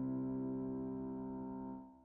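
Background music: a held chord that fades out near the end.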